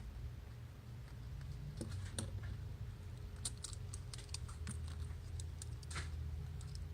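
Small sharp clicks and taps of repair tools and parts against an iPhone 6 during camera replacement, a few about two seconds in and a quicker run of them from about three and a half to six seconds, over a steady low hum.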